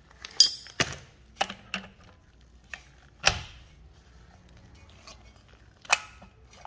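Metal bearing-installation adapters and tools clinking and knocking together as they are handled and set in place: about half a dozen sharp clinks, the loudest a little past three seconds in.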